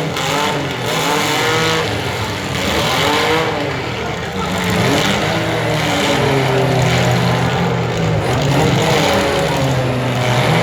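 Several compact demolition-derby cars' engines revving hard, their pitches rising and falling and overlapping as the cars accelerate and back off.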